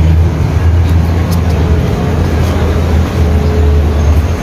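Loud, steady low rumble of outdoor street noise, with wind buffeting the handheld microphone while walking.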